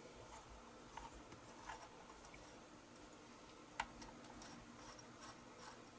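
Faint small metal clicks and scrapes of a nut driver turning out a tiny nut on a model steam locomotive's side rod, with one sharper click nearly four seconds in.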